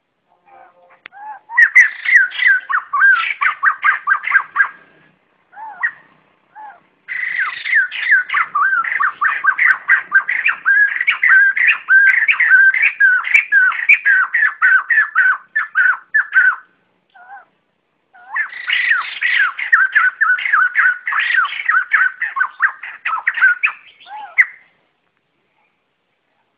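White-crested laughingthrush flock call: loud bouts of rapid chattering notes, three runs of several seconds each with short gaps and single notes between them.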